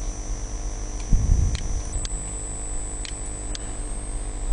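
Steady electrical hum with a thin, high-pitched whine that jumps higher about two seconds in, a low thump about a second in, and a few faint clicks.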